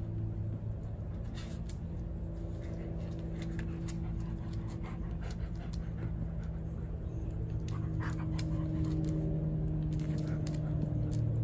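Dogs panting, with scattered light clicks, over a steady low mechanical hum.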